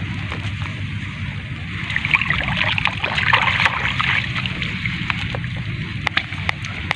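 Hands rummaging through wet grass and shallow water, a crackling rustle with some splashing that is loudest between about two and four seconds in, with a few sharp clicks later, over a steady low rumble.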